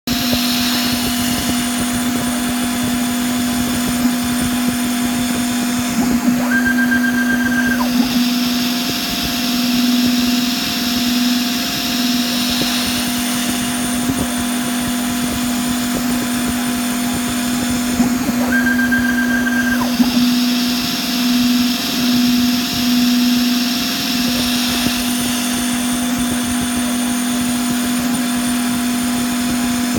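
CNC milling machine running with a steady spindle whine. Brighter cutting noise comes and goes in a repeating cycle about every 12 seconds, and each cycle opens with a short, higher-pitched tone of about a second and a half.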